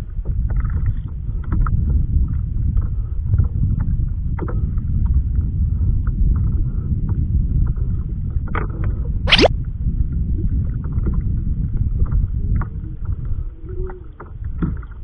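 Wind rumbling on the microphone and choppy water washing against a small inflatable kayak's pontoons, with scattered light clicks. A short sweep rising sharply in pitch cuts through about nine seconds in.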